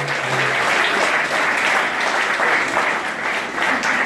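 Theatre audience applauding: dense, steady clapping throughout, with the last low notes of guitar music dying away in the first moment.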